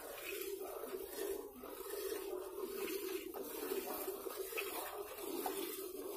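Milk squirting from a cow's teats into a steel pail during hand milking, a run of short squirts repeating about every half second to a second, over a steady hum.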